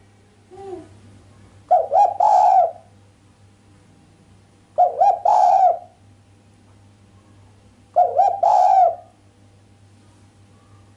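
Female spotted dove cooing sharply: three phrases about three seconds apart, each a couple of quick notes running into a longer coo, without the closing 'kuk' note.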